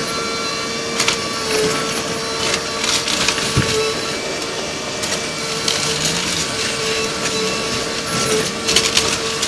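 Kobelco SK220LC hydraulic excavator working on demolition, with a steady whine under a run of crunching and crackling as debris breaks.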